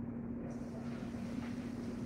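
A steady mechanical hum with one constant low tone, with a few faint clicks of kitchen utensils about two-thirds of the way through.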